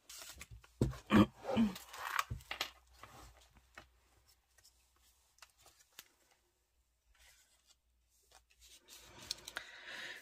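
Paper rustling and crinkling as the pages of a handmade junk journal are handled and turned: a few short rustles in the first seconds, a long stretch of near silence, then faint rustling again near the end.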